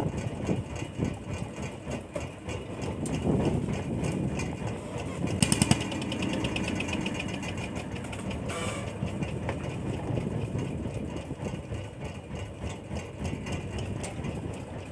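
Fishing boat's engine running with a steady low rumble. There is a short run of rapid clicks about five and a half seconds in.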